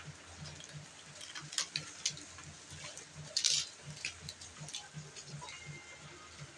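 Parcel packaging being handled and opened: scattered crackles and clicks, with a short rustling rip about three and a half seconds in.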